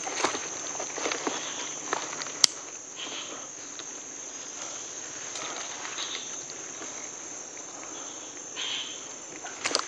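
Forest insects droning steadily at one high pitch, with a few faint rustles and one sharp click about two and a half seconds in.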